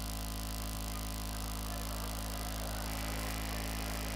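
Steady low electrical hum and buzz, like mains hum from a stage sound system, holding level throughout with nothing sudden in it.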